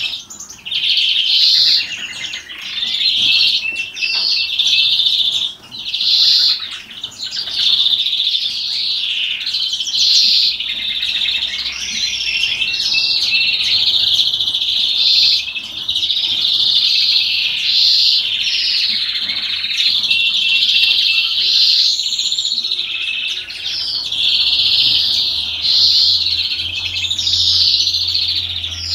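European greenfinch singing its 'salma' song: a near-continuous run of rapid trills and twittering, warbling phrases with only brief pauses.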